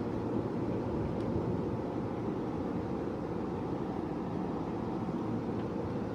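Steady low rumble of an Iida Line electric train, even throughout with no clear clacks, squeals or announcements.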